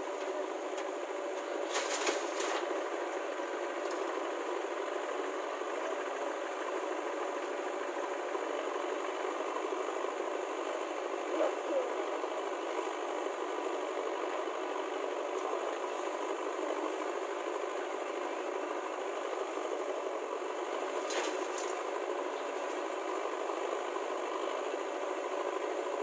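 Diesel engines of a JCB 3DX backhoe loader and a Mahindra tractor running steadily at idle, with a rattle. Short clatters come about two seconds in and again about twenty-one seconds in.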